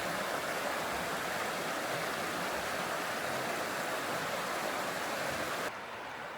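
Steady rush of flowing water, cutting off suddenly near the end to a quieter hiss.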